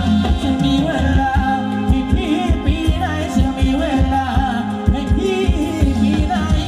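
Live band playing Thai ramwong dance music over loudspeakers: a singer with wavering, ornamented lines over a steady drum beat and heavy bass.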